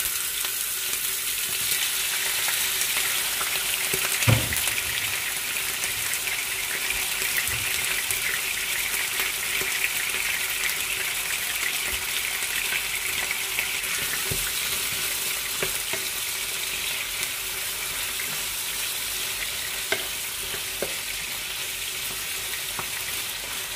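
Cut raw chicken sizzling and frying in hot oil in a frying pan: a steady hiss as the water in the meat cooks off. A few knocks against the pan, the loudest about four seconds in.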